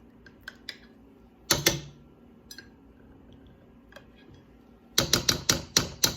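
Sharp clicks and knocks of kitchen utensils: a few light clicks early, two louder knocks about a second and a half in, then a quick run of about six taps, roughly four or five a second, near the end.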